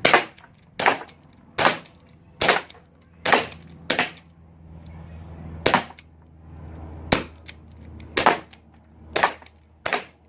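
Glock-style CO2 BB pistol firing metal BBs: about eleven sharp shots in a row at uneven intervals, roughly one a second.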